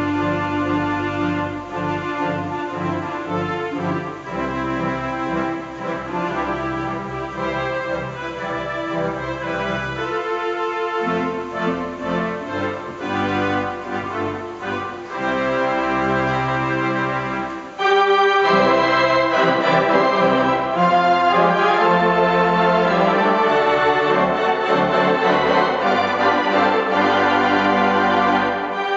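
Wurlitzer theatre organ playing a tune, held chords over a moving bass line. About two-thirds of the way through it suddenly gets louder and brighter and stays so.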